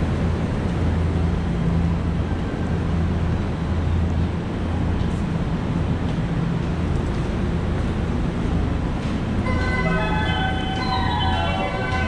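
Steady low rumble and hum of a railway station platform, with a chiming electronic melody of stepping notes starting near the end.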